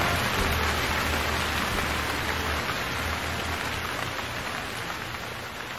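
Steady rain, an even hiss, slowly fading out.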